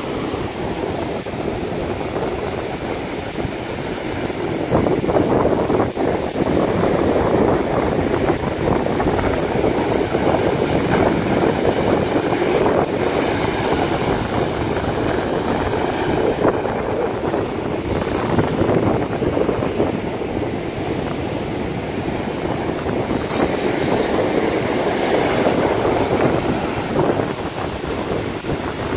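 Sea surf breaking and washing up a sandy beach: a continuous rushing wash that swells and eases slowly as the waves come in.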